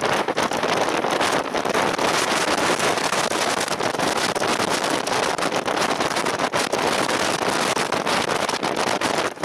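Wind blowing steadily across the microphone, with many quick gusts flickering through a constant rushing noise.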